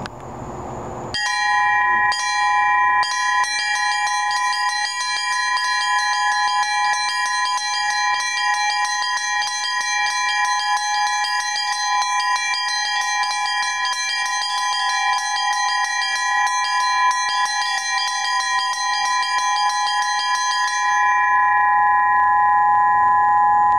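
Small Russian church bells struck in rapid, even sixteenth-note strokes. The smallest bell sounds almost continuously, and a second bell is added now and then a split second before a main stroke as an ornament. The strikes stop near the end and the bells ring on.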